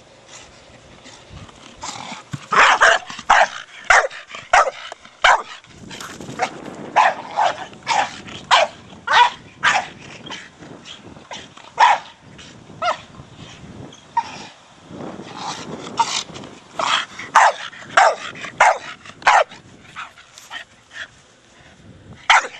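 Staffordshire Bull Terrier barking in quick flurries of short, sharp barks while playing with a ball.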